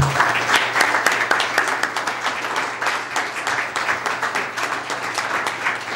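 Audience applauding: many hands clapping, loudest in the first second or so and then going on a little softer.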